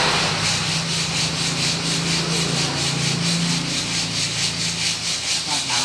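Motor-driven machine running with a steady hum and a rhythmic scraping, about five to six strokes a second.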